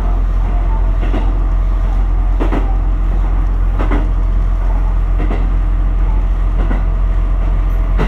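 Diesel railcar running along jointed track, heard from the driver's cab: a steady low engine drone with a clack from the rail joints about every second and a half.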